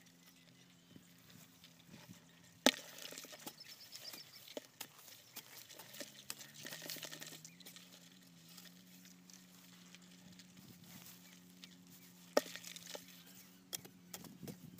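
A long-handled metal digging spade jabbing and scraping into hard, dry clay soil at a rice-field crab burrow, with two sharp strikes, one about three seconds in and another about twelve seconds in, and crumbling soil and rustling straw between them.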